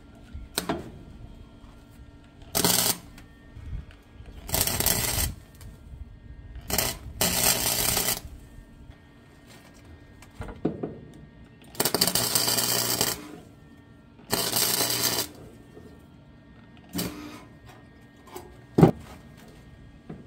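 Welder laying short tack and stitch welds on the sheet-steel floor patches of a 1948 Willys truck: about eight bursts of welding noise, the longest about a second and a half, with pauses between them. A single sharp click comes near the end.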